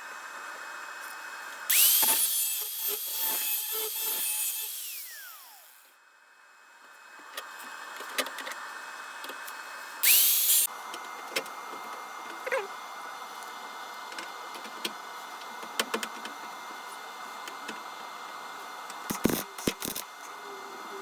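A handheld electric power tool spins up about two seconds in and works the metal loudly for about three seconds, then winds down with a falling whine. A second short spin-up burst comes about ten seconds in. A steady hum runs underneath, with scattered clicks and knocks near the end.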